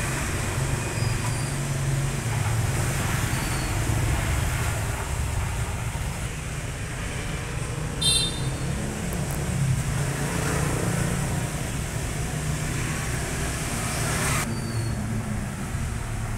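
Steady low rumble of background road traffic, with one brief high-pitched sound about eight seconds in.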